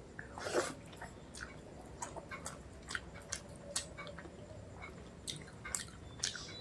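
Close-miked chewing of rice and mutton curry: a string of small wet mouth clicks and smacks, with one louder, longer squelch about half a second in.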